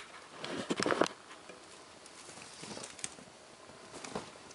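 Soft rustling of a T-shirt being handled and moved aside: a short cluster of rustles about a second in, then fainter scattered rustles and a small tick.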